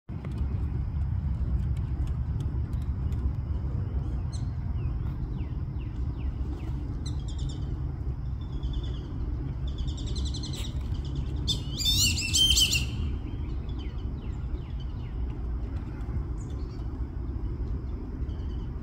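Black-bellied whistling ducks calling to each other with high, squeaky whistles: scattered calls at first, then a louder flurry of rapid squeaks about ten to thirteen seconds in.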